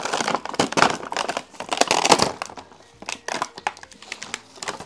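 Plastic and cardboard toy packaging crinkling and crackling as toy construction trucks are pulled out of their box, loudest in the first two seconds or so, then a few scattered clicks.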